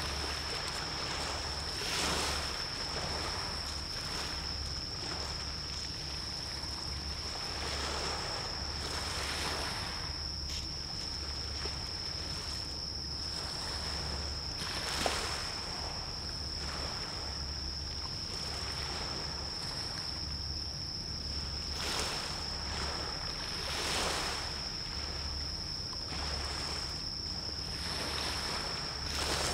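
Small waves washing against the shore in soft swells every couple of seconds, with wind noise and a steady high-pitched tone over them.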